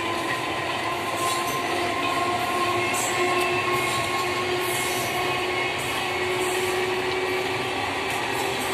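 Indian suburban electric local train (EMU) running along the track, a steady rumble of wheels and rails with faint whining tones.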